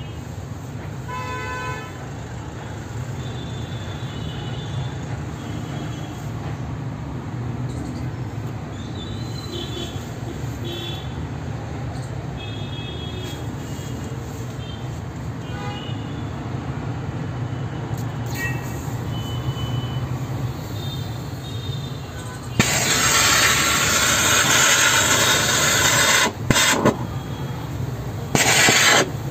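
Steady low background hum with faint scattered high tones, then, about 23 seconds in, a loud hiss of gas from a homemade gas torch's nozzle. The hiss cuts off briefly twice near the end.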